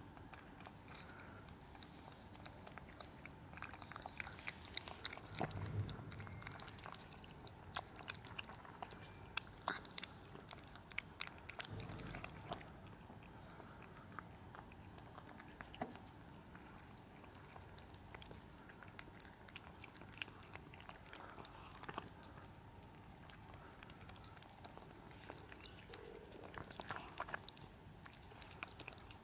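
A kitten and an adult cat chewing wet chunks-in-gravy cat food from a plastic tub: soft, irregular clicking and chewing sounds, busier in the first half and again near the end, with a couple of dull low bumps.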